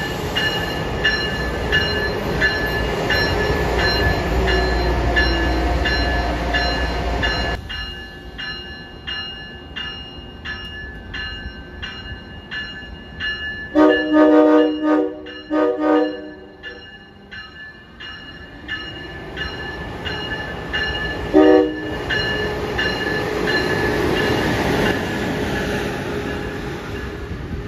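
An Amtrak Acela high-speed trainset runs through the station with a loud rumble that stops abruptly after about seven seconds. A second Acela approaches and sounds its horn in a quick run of four or five short blasts about halfway through, then one more short blast a few seconds later. Its rumble builds again as it passes.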